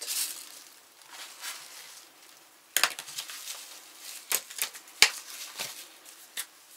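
Plastic bags and paper sticker labels being handled at a table: light crinkling and rustling, then a run of sharp clicks and taps, the loudest about five seconds in.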